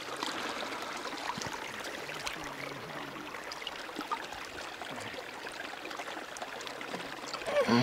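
River water lapping and washing gently at a shallow, stony shore, a steady soft wash with a few faint clicks.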